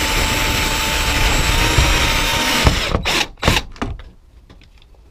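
Cordless drill-driver running steadily as it drives a screw through the roof bracket into the plastic shed panel. It stops about three seconds in and is followed by a few short bursts.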